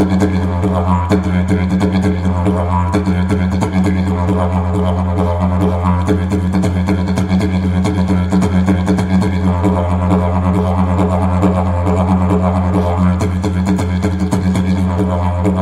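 Didgeridoo drone: one unbroken low note, its overtones swelling and fading as the player's mouth shapes the sound.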